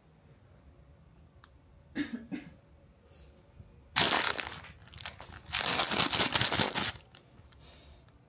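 Plastic wrapping of a packaged convenience-store bread being crinkled and torn open, in two loud stretches about four and six seconds in. A short throat sound comes about two seconds in.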